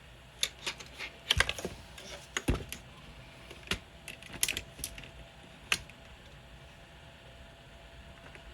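Scattered clicks and clatter of small hard parts and tools being handled and set down on a workbench, about a dozen taps in the first six seconds, some in quick pairs, then only faint background.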